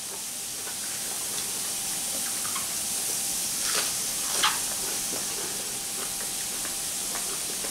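Squid tentacles sizzling on a tabletop electric grill plate: a steady hiss, with two short louder sounds about halfway through.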